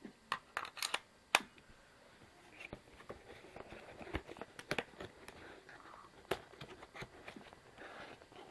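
A quick run of sharp clicks in the first second and a half, then softer scattered clicks and rustling: small hard objects being handled.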